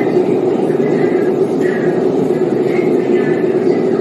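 Bangkok MRT Blue Line train running at speed, heard from inside the carriage: a steady, loud rumble of the train in motion, with brief faint high squeaks about once a second.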